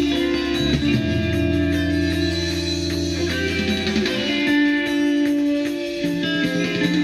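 Guitar music played from a vinyl record on a Denon DP-45F direct-drive turntable with a Shure M97xE cartridge. The low bass line drops out about four seconds in.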